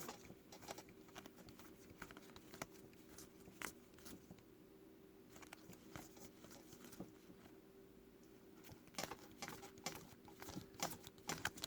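Faint, scattered clicks and rustles of trading cards being flipped through by hand, growing busier about nine seconds in, over a faint steady hum.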